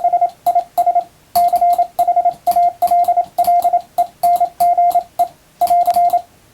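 Morse code (CW) sent fast with an electronic keyer: a steady single-pitch tone keyed into evenly timed dots and dashes grouped into letters and words, with clicks along with the keying. The sending stops shortly before the end.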